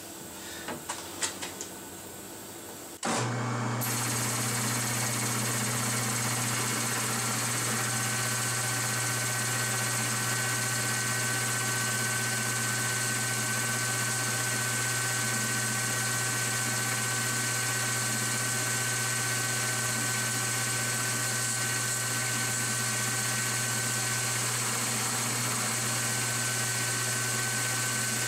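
Metal lathe starting up about three seconds in, after a few small clicks, then running steadily at about 300 rpm while a cutoff blade parts off a slug under power feed. The sound is a steady motor and gear hum with a hiss, joined a few seconds later by a thin, steady high tone.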